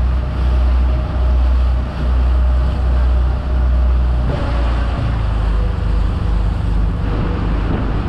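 Fishing boat under way at speed: a steady engine drone and water rushing along the hull, under a heavy low wind rumble on the microphone. The rumble throbs about once a second for the first half, then runs steadier.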